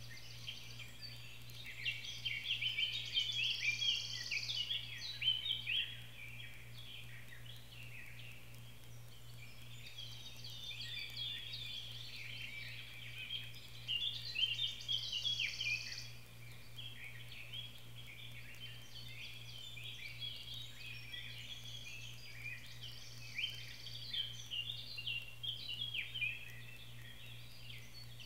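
Songbirds singing: a busy jumble of quick chirps in three bouts of several seconds each, over a steady low hum.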